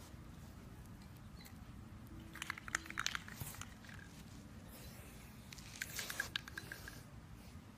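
Aerosol spray paint can being handled and used: two short spells of quick rattling clicks, about two and a half and six seconds in, with a faint hiss of spraying around the second.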